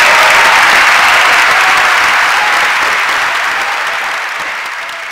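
Audience applauding, a dense, sustained clapping that fades steadily from about halfway through.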